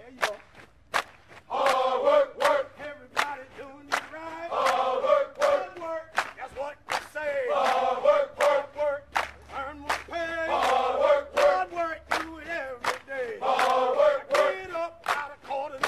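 Background music: a song with a steady drum beat and a chanted vocal hook that repeats every few seconds.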